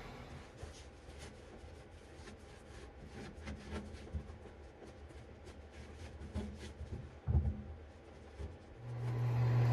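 Paintbrush scrubbing POR-15 rust-preventive paint onto the truck's cab floor: faint, quick scratchy strokes, with a soft thump about seven seconds in. A steady low hum comes in near the end.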